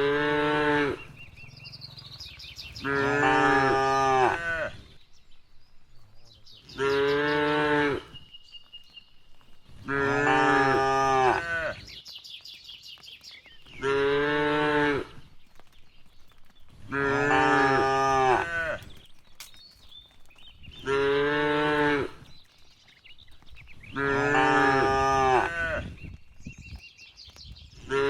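Cow mooing over and over at an even pace, a new call about every three and a half seconds, short and longer calls taking turns.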